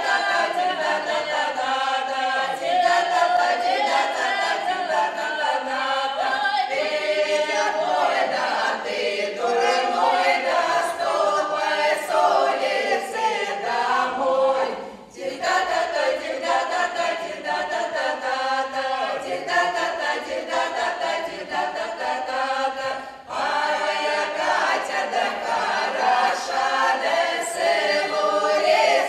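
A women's folk ensemble singing a Russian folk song together a cappella, in long phrases with two brief breaths, one about halfway through and one later on.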